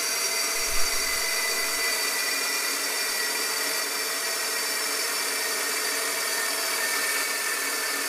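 Inland DB-100 band saw running with a water-cooled diamond blade grinding through a glass bottle: a steady hiss with a high whine. There is a light knock about a second in.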